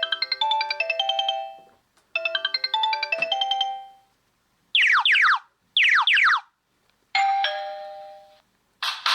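Sony Ericsson W200 ringtones playing in turn: a short phrase of quick electronic notes heard twice, then two falling electronic sweeps, then a single chime that fades away, and near the end a new, fuller ringtone begins.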